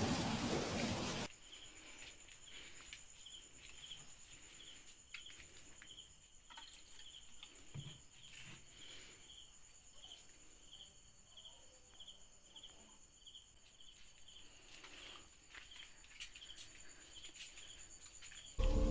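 A loud rushing noise cuts off abruptly about a second in, leaving faint crickets chirping steadily, about two chirps a second, over a thin, steady high whine.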